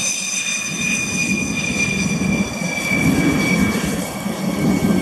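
Dassault Rafale's twin Snecma M88 jet engines running at low power during the landing rollout: a steady high turbine whine over a rumble.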